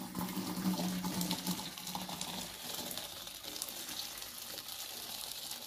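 Salted soaking water being poured off peanuts from an aluminium pot into a steel colander: a steady splashing pour of water draining through the colander.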